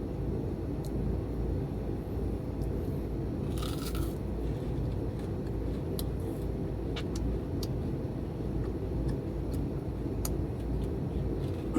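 Crispy deep-fried pork being bitten and chewed close to the microphone: scattered sharp crunches, with a denser crunch about four seconds in. Under it runs a steady low rumble.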